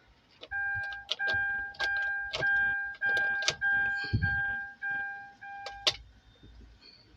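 A car's dashboard warning chime beeping in a steady series of about nine beeps, roughly two a second, with sharp clicks of a key working in the ignition lock. A short low thump comes about four seconds in.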